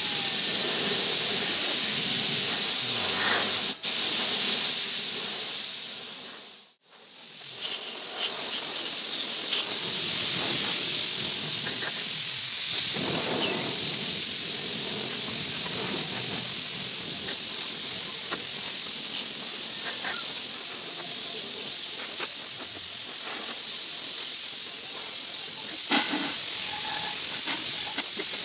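Paint spray gun hissing as it sprays black paint onto a bicycle frame. The spray stops briefly about 4 s in, cuts out fully about 7 s in, then resumes.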